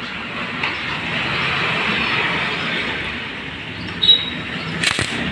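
Workshop noise during timing chain sprocket removal on a motorcycle engine: a hiss that swells and fades, a brief high squeak about four seconds in, then two sharp clicks.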